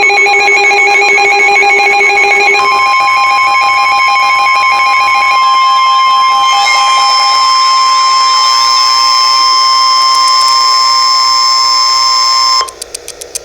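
Emergency alert tones from a weather radio broadcast. A ringing electronic alert sound plays for about the first two and a half seconds. It is followed by a loud steady single tone near 1050 Hz, the NOAA Weather Radio warning alarm tone, which holds for about ten seconds, stops abruptly, and is followed by a few short clicks.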